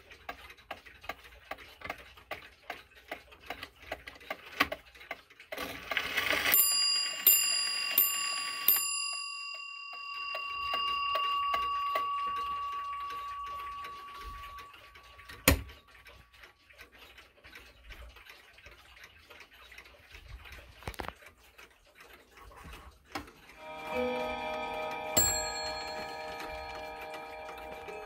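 Antique pendulum shelf clock ticking fast, then striking four o'clock on its gong: four strokes less than a second apart, the ringing tone fading away over several seconds. After a sharp click the ticking goes on, and near the end another clock's gong sounds, many ringing tones at once with a fresh stroke.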